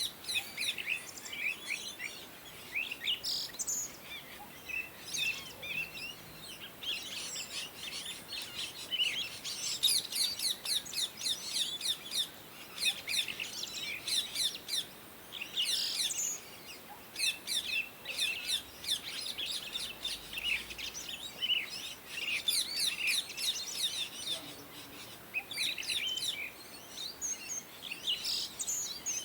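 Indian ringneck parrots chirping in quick runs of short calls, with brief pauses between the runs.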